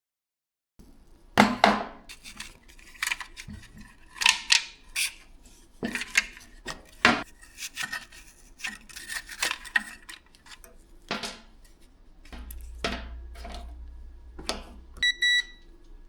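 Irregular clicks, taps and knocks of small hard parts being handled, and a brief high electronic beep near the end.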